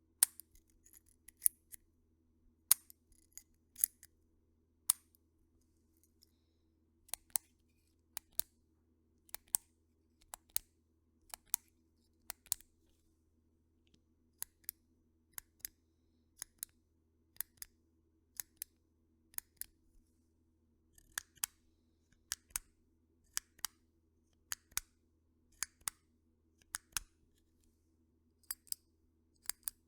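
Click pen buttons pressed repeatedly, one sharp click about every second, many of them coming in quick pairs a fraction of a second apart, the press and then the release of the mechanism.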